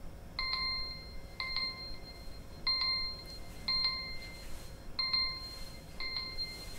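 Smartphone timer alarm ringing: a bright bell-like chime repeating about once a second, six times, signalling that the oven baking time is up.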